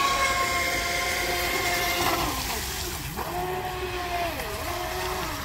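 Pro Boat Recoil 2 radio-controlled speedboat's brushless electric motor whining as it runs across the water, with a hiss of spray. The whine drops about two seconds in and then dips and rises again several times as the throttle is eased off and opened.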